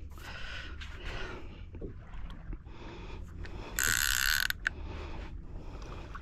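Fishing reel being wound against a hooked tope, with irregular small ticks from the mechanism, and a brief loud rasping hiss lasting under a second about four seconds in.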